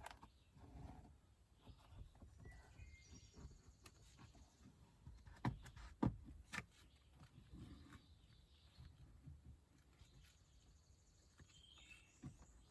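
Quiet handling sounds as a plastic spreader tucks the edge of an upholstered door panel insert into the panel: faint scraping with a few sharp clicks, three of them close together about halfway through.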